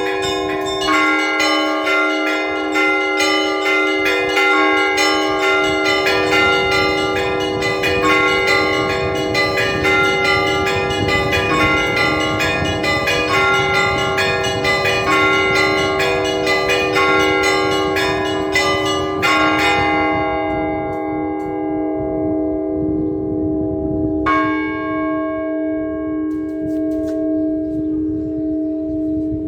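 Russian Orthodox church bells rung by hand in a festal peal: rapid strikes of the small bells over the steady hum of the larger bells. About two-thirds of the way through the small bells stop, leaving the larger bells ringing, and another bell is struck about five seconds later.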